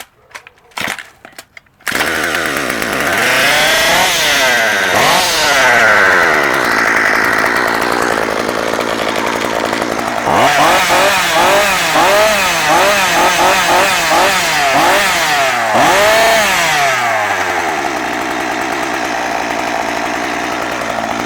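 Stihl MS193T top-handle chainsaw's two-stroke engine catching on a drop-start pull about two seconds in, after a few light clicks. It is then revved up and let back down many times before settling to a steadier run near the end.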